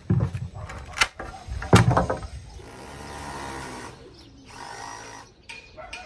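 Wooden planks knocking together several times as they are lifted and handled. After that, a cordless drill runs steadily for about a second and a half, with a shorter run near the end.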